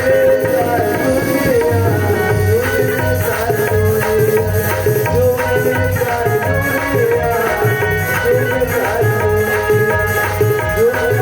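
Instrumental passage of Indian folk music: hand drums keep a steady beat under a wavering melody line, with no singing.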